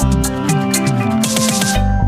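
Background music: an electronic track with a steady drum beat and heavy bass notes.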